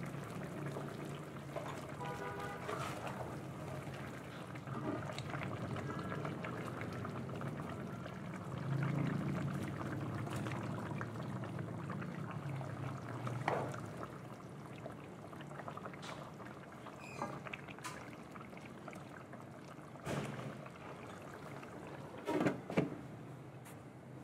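Tomato-based chicken stew bubbling in a stainless steel pan, with splashes as potato chunks go into the broth, and a few sharp knocks in the last few seconds as the glass lid is set back on.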